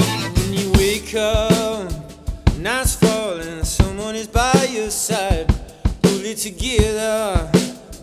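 Live band playing an instrumental passage: a drum kit keeping the beat under a sliding melody line with a wide vibrato.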